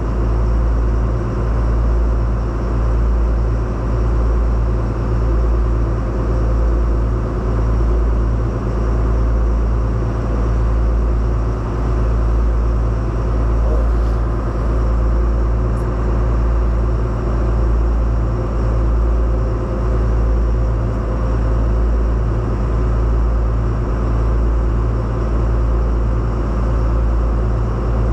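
Engine drone heard on board a moving craft: steady and low, with several fixed tones, swelling and easing about every one and a half seconds.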